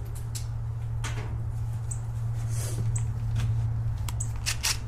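Scattered metal clicks and clanks of a socket wrench being worked on a bolt, with a short cluster of sharp clicks near the end, over a steady low hum.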